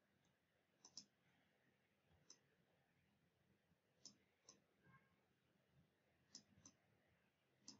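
Near silence with faint computer mouse clicks, several in pairs a second or two apart.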